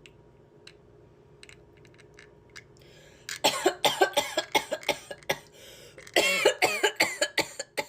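A few faint clicks, then a person coughing loudly again and again in two quick runs. The coughs are forced, meant to cover the sound of a cat food can being opened.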